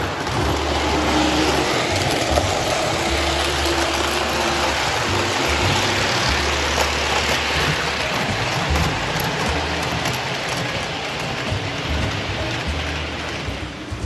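O gauge model steam locomotive running past on three-rail track, a steady hiss and rumble from the running train, growing fainter near the end.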